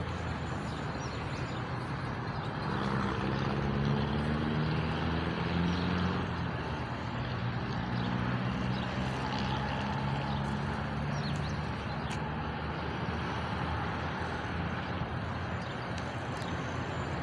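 A low engine hum over steady outdoor background noise, strongest in the first half and fading later on.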